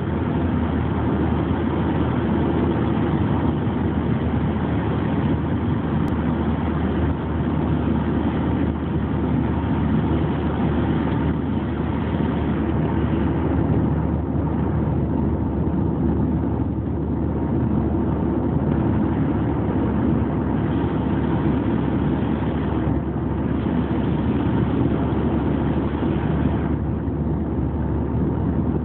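Peugeot 406 2.1 turbodiesel cruising at motorway speed, heard from inside the cabin: a steady low drone of engine and tyre noise that stays even throughout.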